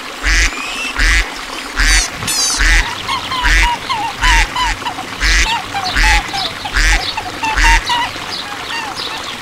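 Ducks quacking over and over, about once every three-quarters of a second, stopping near the end, over a steady background of softer, shorter calls.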